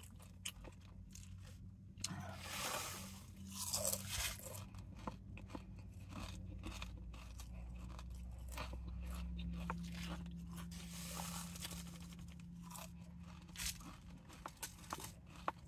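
Cool Ranch Doritos tortilla chips being chewed, a run of sharp crunches and crackles, with a louder stretch of crackling about two to four seconds in. A steady low hum runs underneath.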